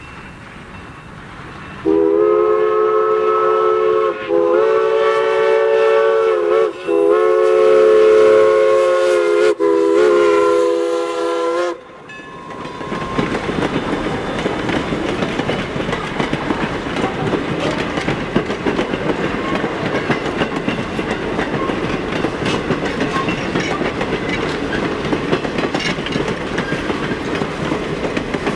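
A train sounds four long chime blasts, each a steady chord of several notes lasting about two seconds. About twelve seconds in, the train passes close by: a loud, steady rush of wheels with rapid clickety-clack over the rail joints.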